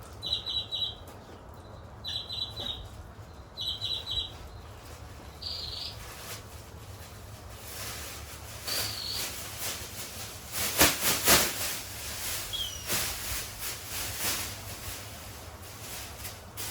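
A small bird chirps in short, fast trills, four times in the first few seconds. Then come bursts of hissing, scraping noise, loudest about eleven seconds in.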